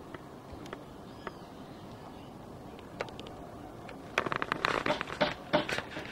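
Grass rustling and crackling right at the microphone, a few faint clicks at first, then a rapid, loud run of crackles from about two-thirds of the way in.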